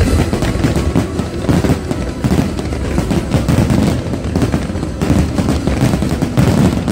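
Aerial fireworks going off in a dense, continuous barrage of closely packed bangs and crackles.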